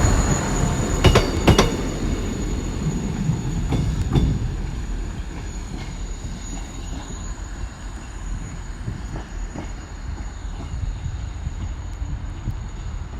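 South Western Railway Class 159 diesel multiple unit running past and away, its wheels clicking over rail joints about a second in. The rumble fades steadily after about four seconds as the train draws off.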